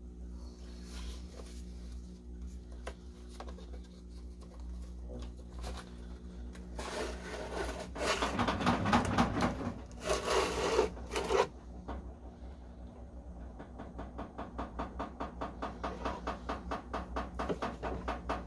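Chainsaw bar and chain being lifted out of a soaking tub and handled, with rubbing and scraping of metal. A louder scraping stretch comes in the middle, and near the end there is a quick rhythmic rubbing at about four strokes a second, growing louder.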